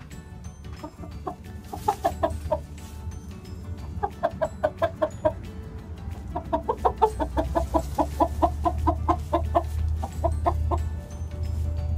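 Hens clucking in quick runs of short notes, about six a second, in three bursts, the longest in the second half. Faint music plays underneath.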